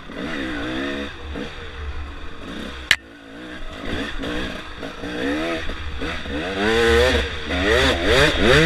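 Enduro dirt bike engine revving up and down in quick bursts as it is ridden over rocky singletrack, with a sharp knock about three seconds in. The engine note eases just after the knock, then revs harder near the end.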